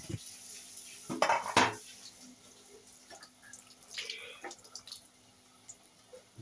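Metal utensil clattering against an iron kadhai in loud bursts about a second in, then a smaller ringing clatter near four seconds, as bhaji are turned in the hot oil. Faint sizzle of the bhaji deep-frying underneath.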